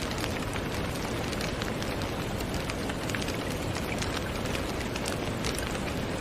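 Steady rain falling, a dense even hiss with many scattered close drops ticking sharply.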